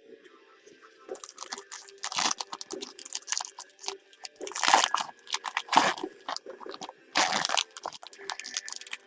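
Crinkling and tearing of sealed packaging as a box of football trading cards is opened by hand, in irregular crackly bursts that are loudest about two, five, six and seven seconds in.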